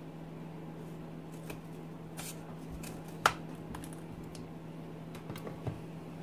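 Scattered small clicks and crinkles of hands handling a seasoning packet over a mixing bowl, with one sharp click about three seconds in. A steady low hum runs underneath.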